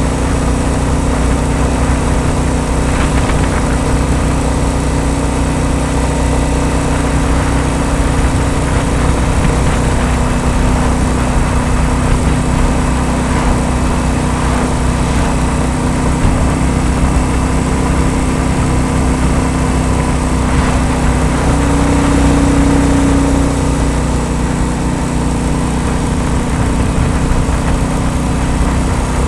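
Royal Enfield Bullet 350's single-cylinder engine running steadily, with a slight change in pitch about three quarters of the way through.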